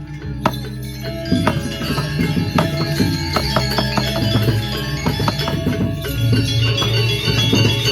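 Balinese gamelan music: quick struck metallic notes that ring on, over a sustained low layer.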